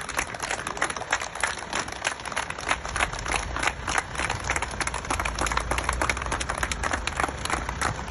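Protesting crowd clapping: a steady stream of sharp hand claps, several a second, over a low background rumble.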